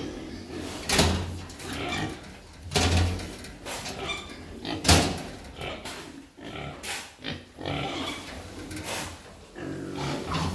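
Pigs grunting and squealing in irregular bursts.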